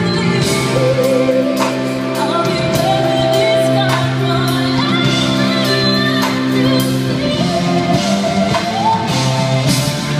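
Live pop music with a woman singing a slow, sustained melody over band accompaniment, heard through the echo of a large arena.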